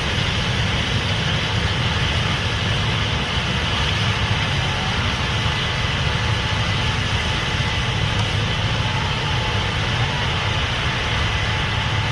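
Case IH 8250 Axial-Flow combine running steadily, a constant heavy engine and machinery drone with a hiss in the upper range.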